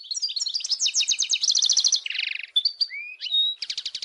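European goldfinch singing: rapid twittering and trilled phrases, a buzzy rattle about two seconds in, then a few slurred whistles and a fast trill near the end.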